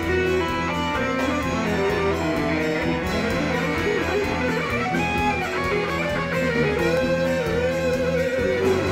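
Electric guitar playing a lead line over a live rock band, its notes bending and wavering in pitch above a steady bass.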